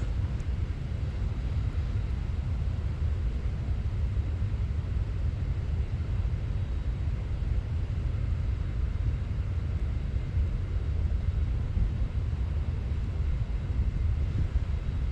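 Steady low outdoor rumble of wind on the microphone mixed with the rush of spillway water, with no distinct events.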